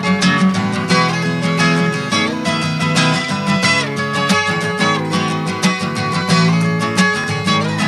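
Background music: an instrumental stretch led by rapidly strummed guitar, with no singing.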